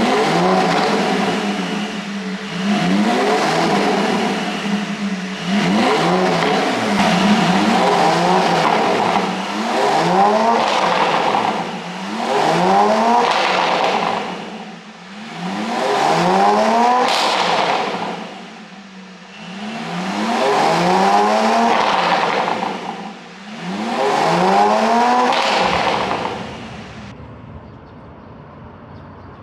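Porsche 718 Boxster 4.0 GTS's flat-six engine, on an ECU tune made for exhaust pops, revving hard again and again: its pitch climbs quickly and falls back over and over, in loud swells every few seconds. About 26 s in it drops away to a much quieter steady sound.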